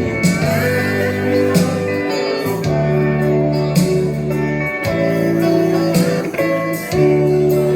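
Instrumental band music led by guitar, over held bass notes that change every second or two. A guitar note slides upward about half a second in.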